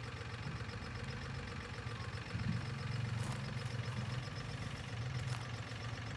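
An engine idling steadily, with a couple of faint ticks.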